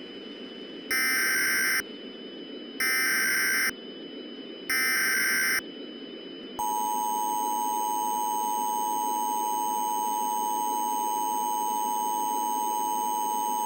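Emergency Alert System signal: three short bursts of SAME header data, each about a second long, then the two-tone attention signal starting about six and a half seconds in and holding steady, over a constant radio hiss. It signals that an emergency alert message follows.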